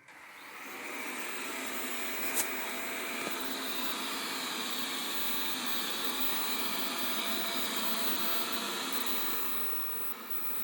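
Xiaomi Mop P robot vacuum starting a cleaning run: its suction fan spins up within about a second and then runs as a steady hiss, with one sharp click a couple of seconds in. The sound drops to a lower level near the end.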